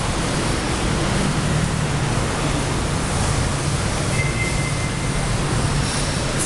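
Electric wall fan running: a steady rushing noise with a low hum underneath.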